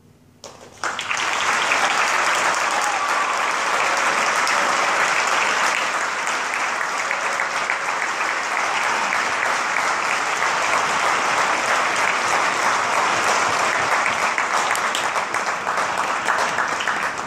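Audience applauding. It breaks out about a second in, after a moment of near quiet, and dies away near the end.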